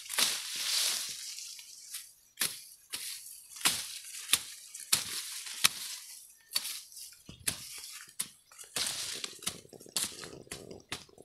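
Dry grass and stems rustling and crackling, with many irregular sharp snaps as grass is cut low to the ground with a knife.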